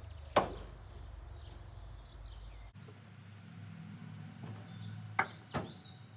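Sharp clacks and knocks from a folding table being handled at the back of the van: one loud clack about half a second in, and two more close together near the end. Birds chirp faintly in the background.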